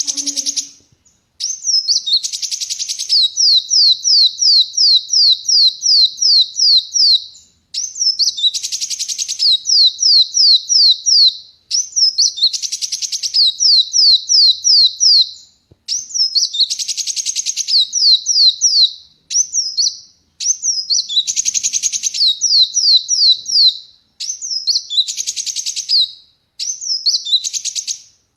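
Kolibri wulung sunbird singing loudly and continuously. It repeats runs of quick downslurred whistled notes, about five or six a second, mixed with harsh buzzy chatters, with a brief pause every three to four seconds.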